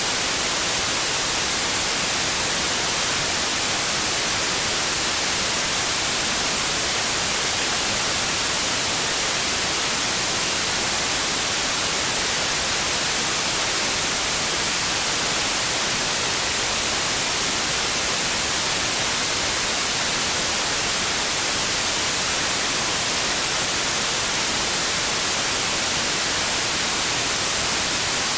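Steady, unbroken white noise: an even hiss, strongest in the high end, with no changes or events.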